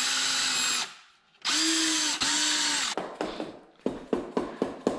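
Power drill run in three short bursts, its motor pitch rising as each burst starts and falling as it stops, then light clicks and taps of tools on the engine.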